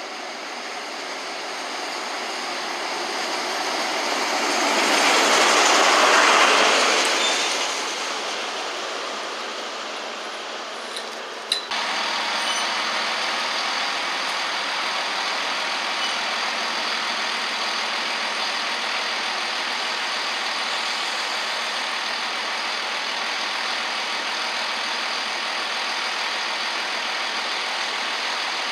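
A train passing at speed: its noise swells to a loud peak about six seconds in and fades away. About twelve seconds in the sound changes abruptly to a steady, even noise that holds to the end.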